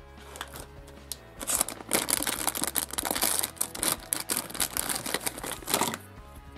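Plastic foil blind-bag packet crinkling and crackling in the hands as it is opened and a trading card is drawn out, starting about a second and a half in and stopping near the end, over quiet background music.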